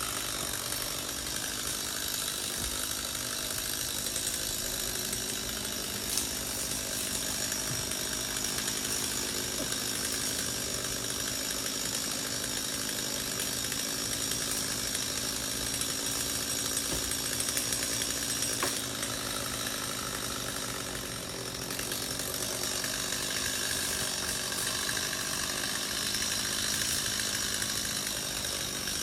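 A chainsaw running steadily, with a brief dip in level about two-thirds of the way through and a single sharp click early on.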